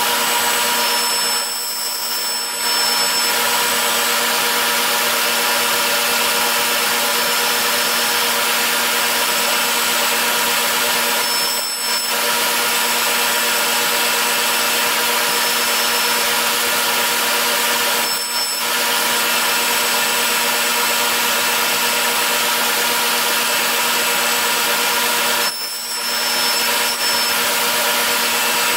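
Table saw running steadily, a loud continuous whir with a constant hum, dipping briefly four times.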